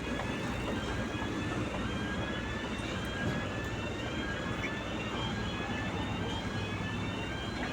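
Heavy construction machinery running steadily with a low rumble. A faint high whine rises slowly and repeats about every second and a half.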